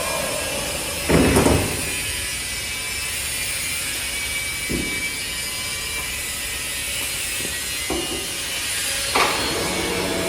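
Woodworking CNC router running, with a steady high hiss and a few short, loud mechanical bursts, the loudest about a second in and another near the end.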